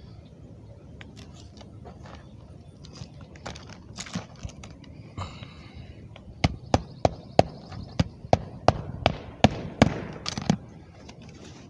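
A run of about a dozen sharp knocks at roughly three a second, after several seconds of scattered softer clicks and rustling.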